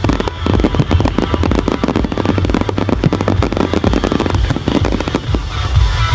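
Fireworks crackling: a dense, rapid run of sharp cracks and pops, many each second, over a low steady rumble.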